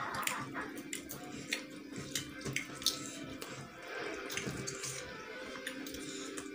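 Eating by hand: fingers mixing rice and curry and mouths chewing, heard as a run of small wet clicks and smacks.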